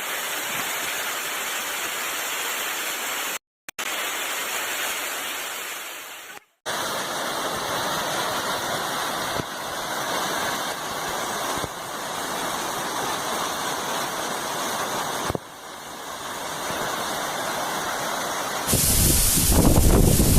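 Steady rush of a mountain waterfall, cutting out briefly twice. Near the end it gets louder and deeper, with wind buffeting the microphone.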